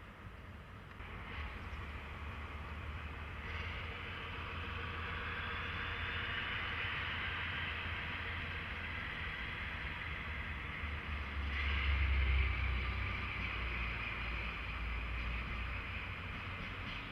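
A train moving by rail, a low rumble with a rushing higher-pitched rolling noise that builds over the first few seconds and is loudest about twelve seconds in.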